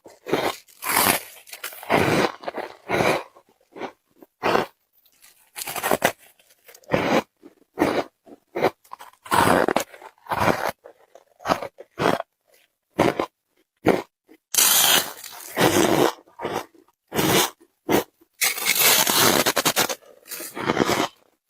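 Close-up crunching and chewing of squeaky white freezer-frost ice: a rapid, uneven run of short crunchy bites, with two longer stretches of chewing about two-thirds of the way in and near the end.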